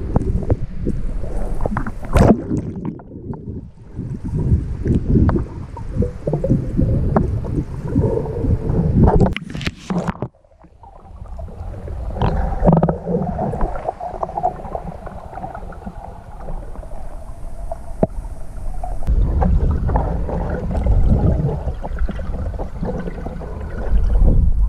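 Muffled underwater sound of a camera in its waterproof housing: a low rumble of moving water with knocks and clatters from a snorkeler kicking and the housing being handled. The sound drops away briefly about ten seconds in.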